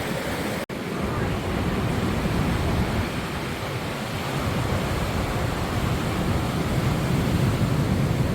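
Ocean surf washing steadily on a rocky shore, with wind rumbling on the microphone; the sound cuts out for an instant under a second in.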